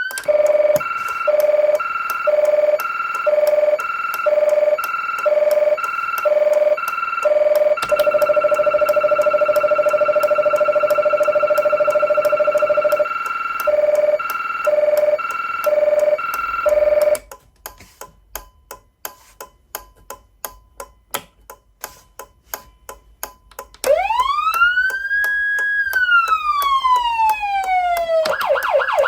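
Federal Signal Unitrol Touchmaster electronic siren amplifier cycling through its tones: a single-pitch tone pulsing on and off a little more than once a second, held steady for about five seconds, then pulsing again until it stops about 17 s in. For about six seconds only the old amplifier's indicator relay is heard, clicking ("kachi-kachi") like a turn signal, before one slow wail rises, holds and falls, and a fast yelp begins near the end.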